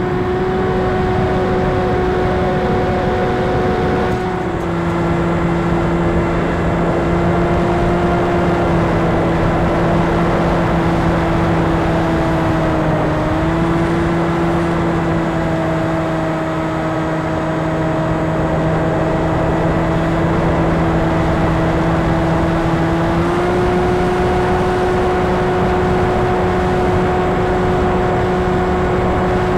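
Electric brushless motor and propeller of a fixed-wing RC plane in flight: a steady whine over a rush of air. The pitch drops a little about four seconds in, dips briefly midway and rises again near the end as the throttle changes.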